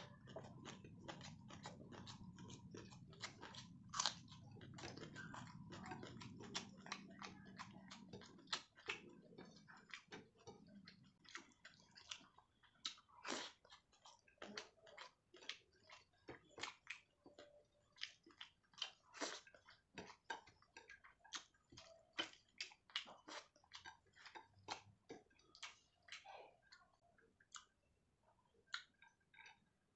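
Close-miked chewing and eating: quick, irregular wet mouth clicks and smacks, several a second, as rice and fish curry are eaten by hand.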